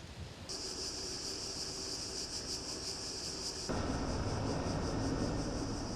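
Outdoor wind noise with a steady high-pitched hiss. The sound changes abruptly about half a second in, and again a little past three and a half seconds, when a low rumble joins it.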